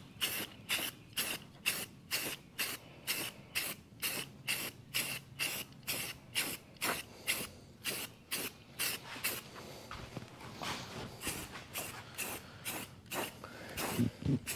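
Aerosol spray-paint can hissing in quick short bursts, about three a second, then in longer, less even sprays from about ten seconds in.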